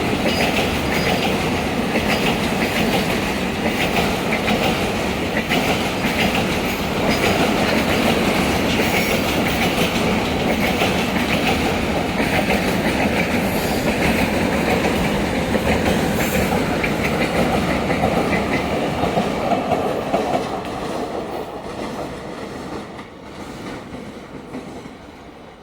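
Car-carrier freight train rolling slowly past, its wagon wheels clicking over the rail joints amid a steady rumble. The sound fades away over the last few seconds as the train moves off.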